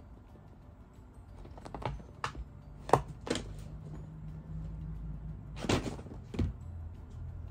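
A cat pouncing and scrambling after a toy mouse on a carpeted floor: a run of soft thumps and scuffs, the loudest about three seconds in, and two more near the end.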